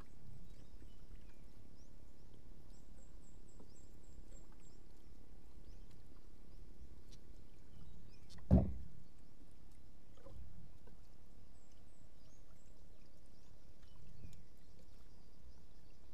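Water lapping and sloshing against the hull of a small outrigger boat over a steady low rumble, with a single dull thump about eight and a half seconds in.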